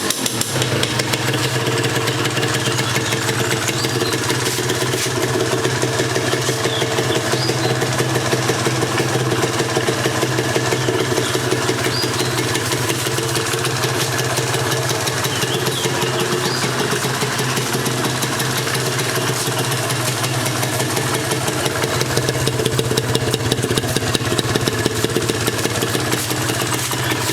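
Kawasaki Victor 150cc two-stroke motorcycle engine running steadily.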